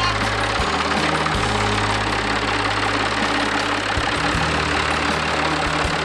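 Farm tractor engine running steadily, with music underneath.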